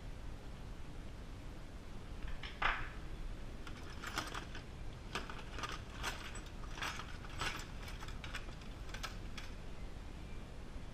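Irregular mechanical clicks and short scrapes, about eight of them over several seconds, from hand tools and metal parts being worked on a large-scale RC car.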